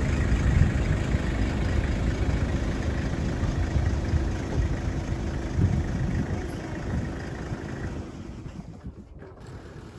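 Toyota Hilux ute's engine running with a low rumble as it reverses a boat trailer across the beach sand, easing off about eight seconds in.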